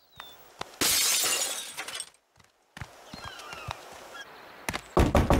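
Glass shattering about a second in, fading over about a second: the picture tube of an old television and the glass window of a stove door breaking. A heavy thump near the end.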